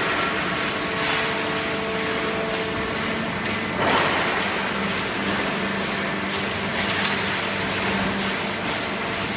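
Hydraulic cardboard baler running: a steady motor-and-pump hum, with a few brief sharp clunks or hisses from the machine about 1, 4 and 7 seconds in.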